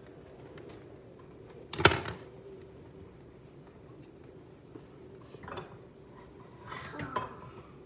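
Metal kitchen utensils clattering on a stovetop and counter: one loud sharp clatter about two seconds in, then lighter knocks and scrapes of a spatula at a frying pan near the end, over a faint steady hum.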